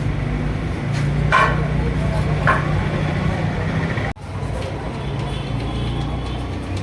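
Motor vehicle engine running steadily on the road, a low hum with traffic noise, with two short higher-pitched sounds about a second and a half in and again a second later. The sound cuts out for an instant about four seconds in.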